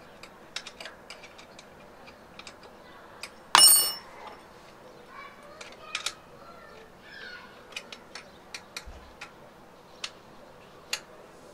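Small metal clicks and taps from fingers and a tool working at a mountain bike's disc-brake caliper and rotor. About three and a half seconds in comes one louder metal clank that rings briefly.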